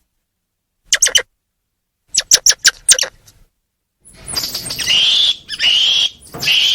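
Squirrel monkeys chirping and twittering: a short cluster of high, sharp chirps about a second in and a rapid run of them about two seconds in. After a pause, a noisier stretch of three rising, squeaky calls follows.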